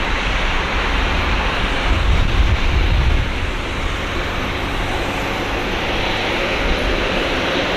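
Boeing 747-8F freighter taxiing, its four GEnx-2B turbofan engines running with a steady jet rush and a deep rumble that eases about three seconds in.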